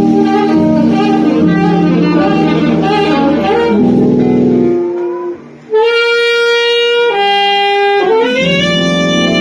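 Live band playing an R&B intro. About five seconds in the accompaniment drops away briefly and a saxophone comes in with long held notes, the last one sliding up into pitch as the band returns.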